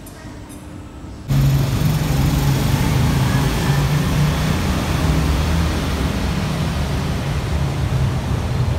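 Motorcycle engines running in an underground parking garage, a loud, steady low engine noise that starts suddenly about a second in. Before that, the faint hum of a mall escalator.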